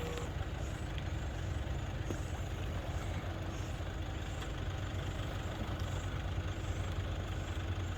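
Nissan pickup's engine running steadily, a low even hum.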